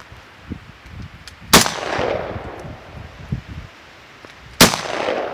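Two rifle shots from a Ruger Mini-14, about three seconds apart, each a sharp crack followed by a long echo that dies away.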